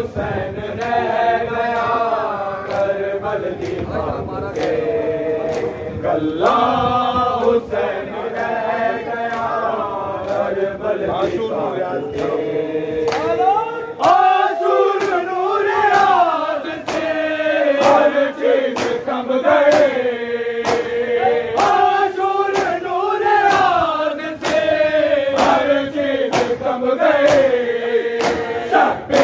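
Men chanting a Punjabi noha (Muharram mourning lament) together, with a steady rhythm of sharp hand slaps on bare chests (matam) keeping time.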